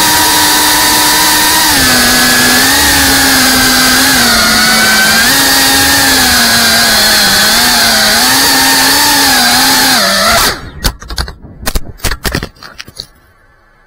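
FPV quadcopter drone's motors and propellers whining loudly, the pitch rising and falling with the throttle. About ten seconds in the motors cut off suddenly and a quick run of knocks and scrapes follows as the drone crashes and tumbles in the dirt.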